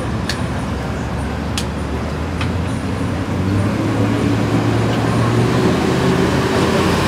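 Road traffic: a vehicle engine running with a steady low hum that grows louder about halfway through. A few faint light clicks in the first couple of seconds.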